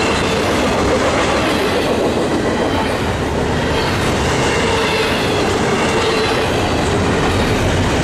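Double-stack intermodal freight train passing close by: a steady, loud rumble of well-car wheels rolling on the rails, with faint thin squealing tones from the wheels.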